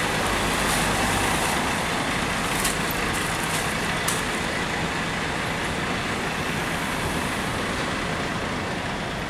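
Steady street noise with a motor vehicle engine running, the kind of truck or traffic rumble heard beside a road. There are two short sharp knocks, about two and a half and four seconds in.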